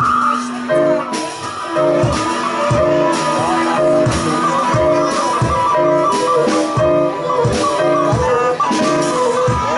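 Live improvised band music: guitars pluck a repeating figure of short notes over regular percussive hits, with a high held line above.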